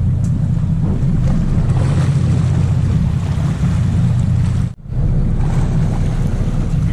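Sportfishing boat's engine running in a steady low drone, with water and wind noise over it. The sound drops out for an instant about five seconds in.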